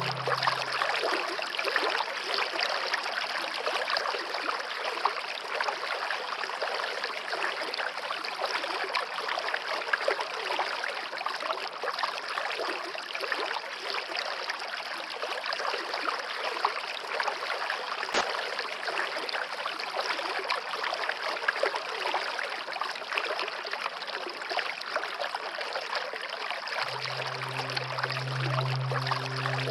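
Steady heavy rain falling in a tropical rainforest, an even dense patter. A low steady hum comes in near the end.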